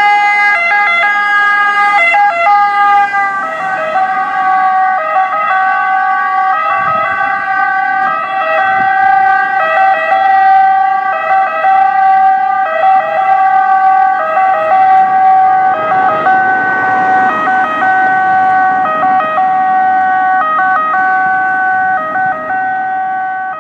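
Italian emergency ambulance's two-tone siren wailing continuously, alternating between a high and a low note as the ambulance runs with lights and siren. Its pitch drops slightly about three seconds in as the ambulance passes and drives away.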